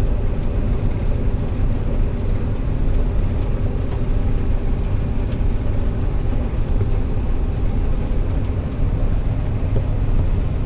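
Combine harvester running steadily under load, with a dense low machine drone. A faint high whine rises above it for a few seconds in the middle.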